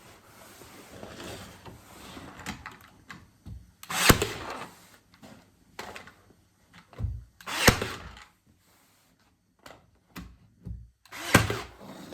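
A power tool fires in three short bursts about three and a half seconds apart, each with a sharp snap, as a trim piece is fastened to a wooden cabinet.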